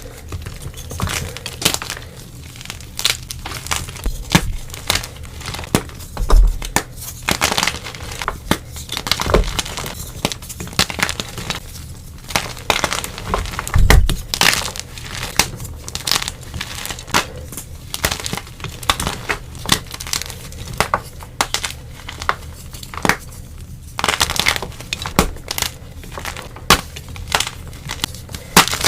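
Blocks of dyed gym chalk being crushed and crumbled: a dense, continuous run of crisp crunches and crackles, with a few heavier crunches about six, nine and fourteen seconds in.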